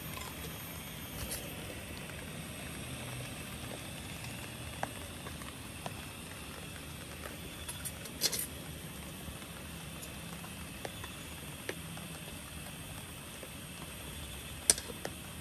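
Scattered light clicks and scrapes of a spoon scooping cooked rice from a metal pot, with a sharper clink about halfway through and the loudest near the end, over a steady outdoor background hiss.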